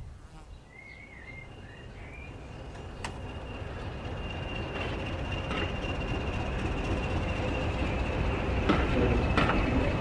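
OO gauge model train running on the layout's track: a rumble of wheels on rail that grows steadily louder as the train approaches, with a steady high motor whine and occasional sharp clicks.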